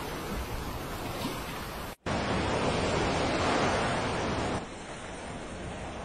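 Ocean waves rushing and breaking: a steady wash of surf. It cuts out for an instant about two seconds in and turns quieter a little past four and a half seconds.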